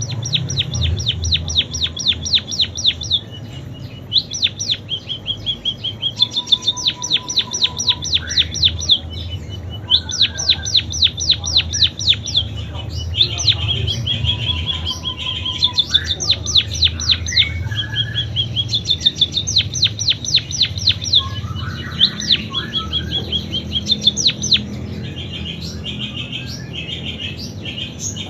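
Pipit singing a canary-style song: fast trills of rapidly repeated high, down-sweeping notes in phrases of one to three seconds, broken by short pauses and a few lower notes.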